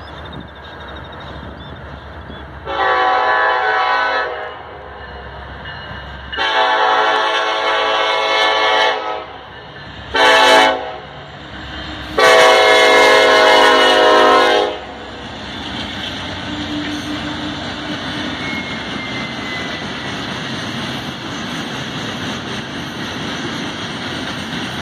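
A freight locomotive horn sounds the grade-crossing signal: two long blasts, one short, then one long. The horn is on the lead locomotive, a Norfolk Southern EMD SD70ACe, at the head of a loaded stone train. The locomotives and hopper cars then pass with a steady noise of wheels on the rails.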